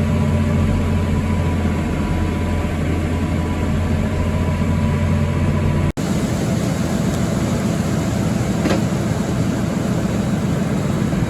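Tractor engine running steadily, cut off abruptly about six seconds in and followed at once by a noisier, steady engine sound.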